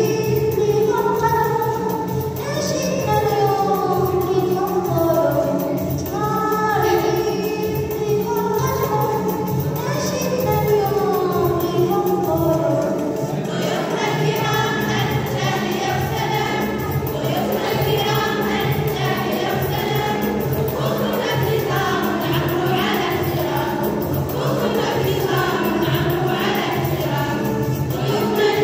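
A group of voices singing an Arabic scout song (nasheed) together over a musical accompaniment.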